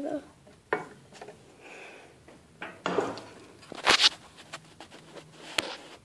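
Scattered small clicks, knocks and rustles from handling an oil bottle and the phone against the steel spring bracket and wooden header while oiling a garage door's spring drum bearing, with a short louder noise just before four seconds in.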